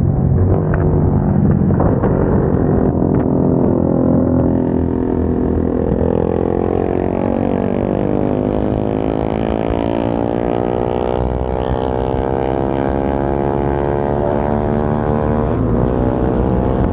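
Single-cylinder motorcycle engine through an aftermarket exhaust, under way at speed. Its revs climb steadily in one long pull from about four seconds in, hold high, and break briefly near the end.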